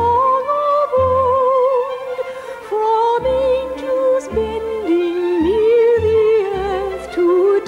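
Music: a melody sung in operatic style with wide vibrato, over an orchestral accompaniment with repeated low bass notes.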